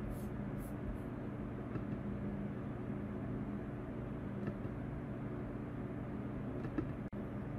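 Steady low background hum with a few faint steady tones, and a couple of faint ticks near the end.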